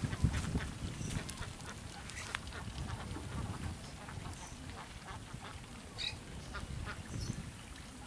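Ducks quacking off and on, over a steady low rumble.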